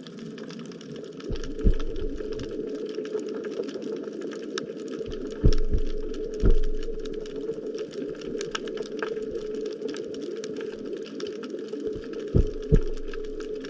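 Underwater reef ambience: a dense, constant crackle of fine clicks over a steady low hum, with a few heavy low thumps about two, five and a half, six and a half, and twelve and a half seconds in.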